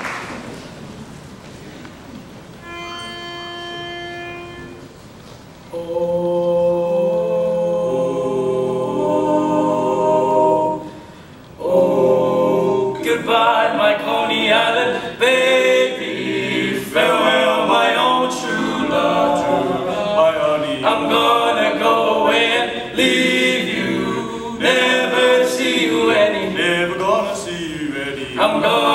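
Barbershop quartet of four male voices singing a cappella in close harmony. A long held chord opens it, and the song moves on from about twelve seconds in. First the last applause fades, then a single steady starting note of about two seconds sounds, as a pitch pipe gives.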